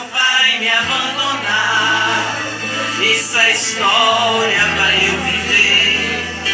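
Portuguese gospel song: voices singing over sustained low accompaniment notes that change twice.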